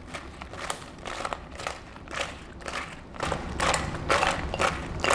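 Fried chicken wings being tossed in a bowl of garlic butter sauce: a rhythmic swish and clatter about twice a second, louder after about three seconds.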